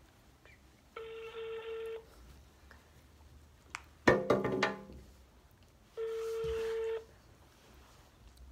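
Telephone ringback tone from a smartphone on speaker: two steady one-second rings about five seconds apart, an outgoing call ringing and not yet answered. Between the rings comes a short, loud burst of a voice.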